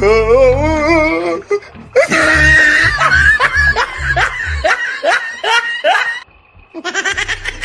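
Loud laughter sound effect set to music with a heavy beat. A wavering, drawn-out note is followed by rising laugh-like yelps about twice a second, which cut off about six seconds in.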